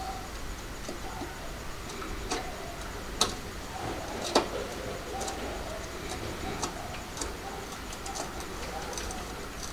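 Phillips screwdriver driving the tail-light screws on a Yamaha RD350: scattered, irregular sharp metallic clicks and ticks as the tip works in the screw head, two louder clicks about three and four and a half seconds in.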